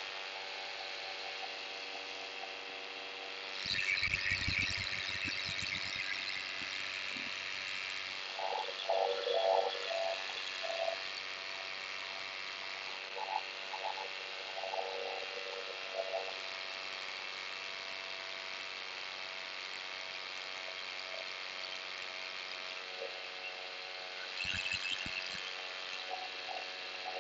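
Paramotor engine and propeller droning steadily in flight, with brief rumbles of wind on the microphone about four seconds in and again near the end.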